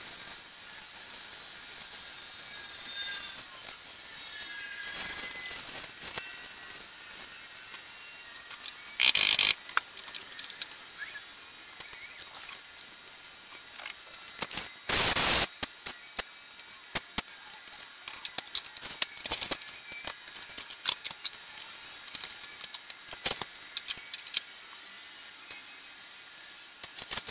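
Two short hissing bursts from an aerosol spray paint can, each about half a second long and some six seconds apart, with scattered light clicks and ticks after them.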